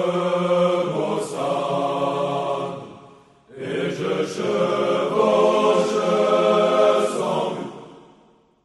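Unaccompanied singing of a slow French scout song. One sung phrase dies away about three seconds in, and a second phrase starts straight after and fades out near the end.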